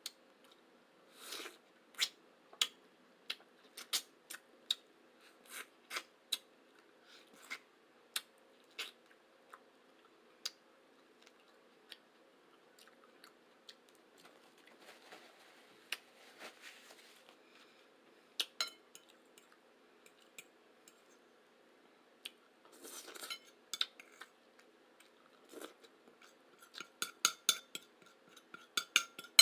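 Close-miked eating: chewing with sharp wet mouth clicks and smacks, and a few clinks of cutlery on a plate, coming in a quick run near the end.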